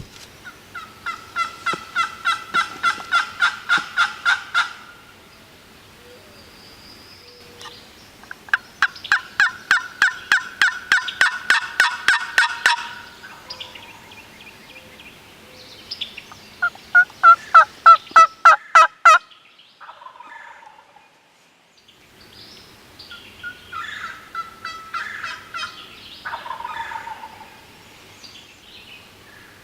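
Wild turkey yelping: several long runs of rapid, evenly spaced calls at about four a second, with the run a little past the middle the loudest and a looser, quieter run near the end.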